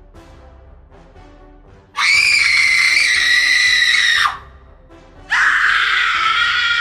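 Two long, loud, high-pitched screams from a cartoon character's voice, about two seconds in and again near the end, the second one wavering, over soft background music.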